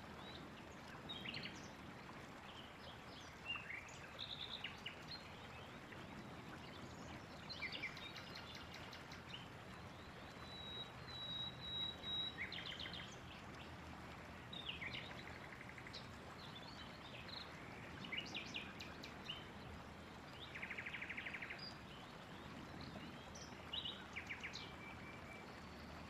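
Several wild birds calling and singing, short chirps and phrases scattered throughout, with a thin, steady high whistle held for about two seconds around the middle and a fast, even trill about three quarters of the way through. A faint, steady hiss lies beneath.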